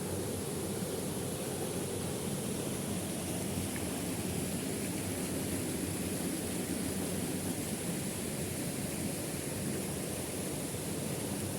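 Waterfall: a steady, unbroken rush of falling water, with a thin, steady high hiss above it.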